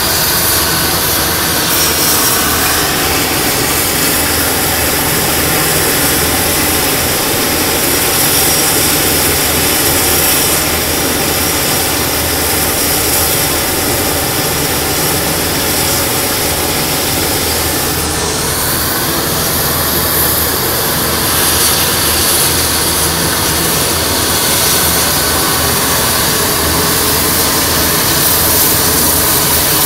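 Air ambulance helicopter's turbine engines and rotor running steadily on the ground, a loud continuous whine and rush as it prepares for take-off.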